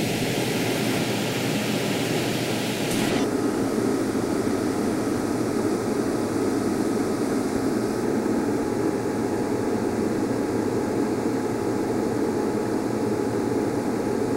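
A loud, steady rushing noise with no clear rhythm or pitch, carrying an extra high hiss that drops away abruptly about three seconds in.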